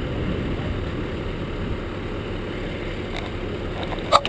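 Vehicle engine idling steadily, with one short sharp clank near the end.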